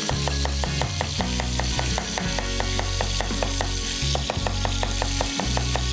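Chef's knife slicing an onion on a wooden cutting board in quick, even strokes, about four or five cuts a second, each blade tapping the board. A pan of fennel sizzles steadily underneath.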